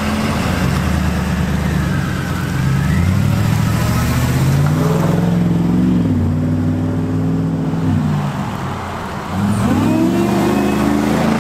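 Supercharged 6.2-litre V8 of a PaxPower Jackal Chevy Silverado revving as the truck accelerates away and drives past. The engine note climbs, eases off about eight seconds in, and climbs again near the end.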